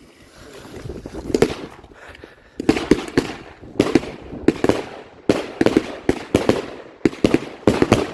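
Three Vortex 3 fireworks going off at once: a hiss building over the first second and a half, then a rapid, uneven series of loud bangs, several a second, from about two and a half seconds in.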